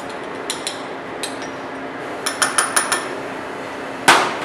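Metal spoon clinking against small ceramic dishes: a few light clinks, then a quick run of about six around the middle, and a louder scraping knock near the end.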